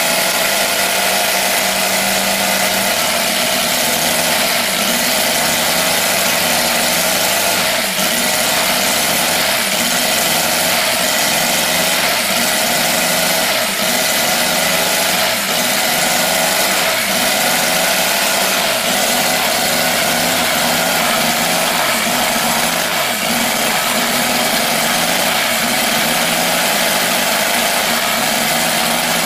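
Evolution 7-cylinder four-stroke radial glow engine on a giant-scale model warplane, running steadily with its propeller spinning. The engine is brand new, on its second start and being run in at part throttle.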